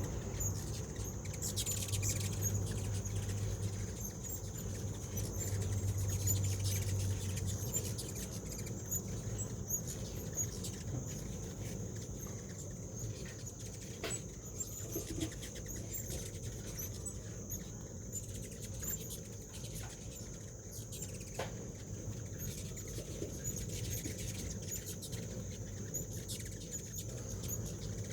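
Hummingbirds: a low wing hum in two stretches during the first several seconds, with many short, high chip notes scattered throughout, over a steady high-pitched insect drone.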